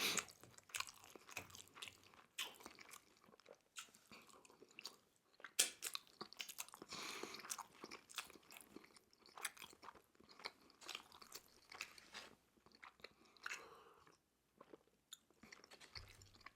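Close-miked chewing of crunchy Korean fried chicken: irregular crunches and bites, with one louder crunch about five and a half seconds in.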